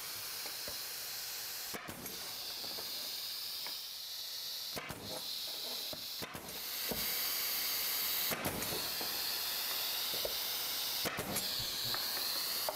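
Pneumatic brad nailer firing brads into wood, about five sharp shots a couple of seconds apart, over a steady high hiss.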